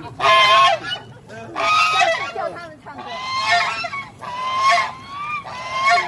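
Domestic geese honking, a run of about five loud, drawn-out honks, each close to a second long, following one another about once a second.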